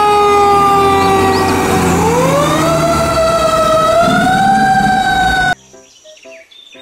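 Fire engine siren wailing over a low engine rumble: one loud tone sinking slowly in pitch, then winding back up about two seconds in and holding high. It cuts off suddenly near the end.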